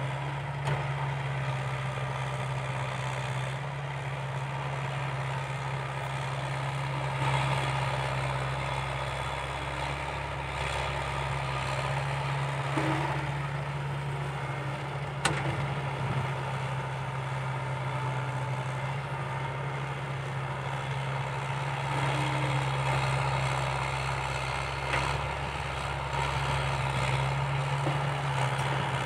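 Komatsu excavator's diesel engine running steadily under load as it digs and swings its bucket. A sharp knock comes about halfway through.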